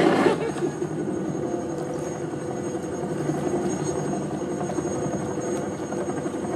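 Steady engine-and-motion rumble from a vehicle, with no change in pitch or level.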